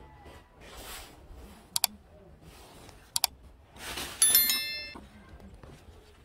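A like-and-subscribe sound effect: two quick double clicks, then a bright bell chime of several ringing tones about four seconds in that fades within a second. Soft rustling noises come and go in between.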